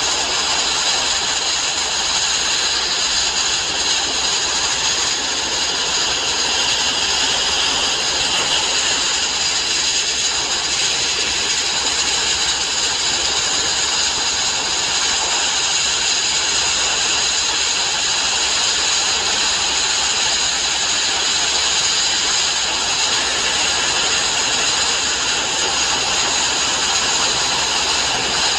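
Sandblasting: compressed air and abrasive rushing from the blast nozzle in a loud, steady, unbroken hiss.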